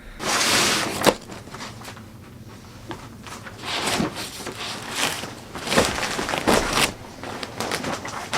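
Rustling and handling noises, with a few sharp knocks and shuffling, footstep-like sounds. The rustle is loudest in the first second.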